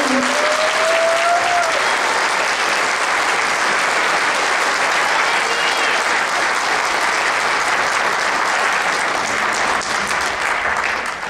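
Audience applauding steadily, dying down slightly near the end.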